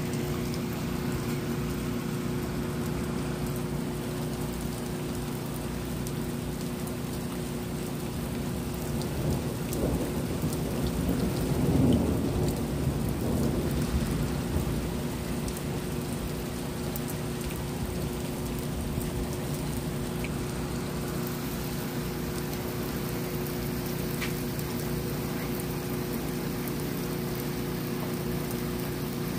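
Steady rain falling, with a roll of thunder building about nine seconds in, peaking a few seconds later and fading out.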